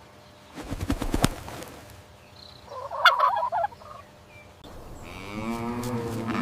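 Domestic turkey gobbling in a short rapid warble about three seconds in, after a few sharp noises about a second in. Near the end a cow starts a long low moo.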